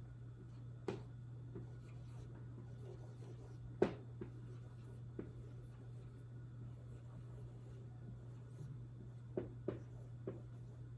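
Writing by hand: a few short taps and scrapes of a pen or marker, the sharpest about four seconds in and a quick cluster near the end, over a steady low hum.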